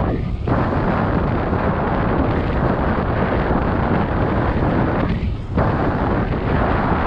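Wind buffeting a GoPro action camera's microphone while cycling: a loud, steady rumbling rush that drops out briefly twice, just after the start and about five seconds in.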